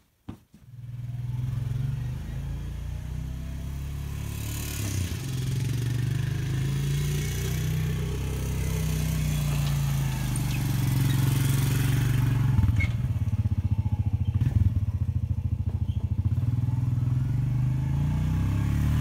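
Quad ATV engine running as it is driven around the yard. About twelve seconds in it gets closer and louder, with a fast, even chugging beat.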